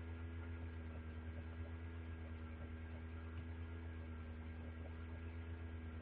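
Steady electrical mains hum with faint hiss, unchanging throughout, picked up by the recording setup.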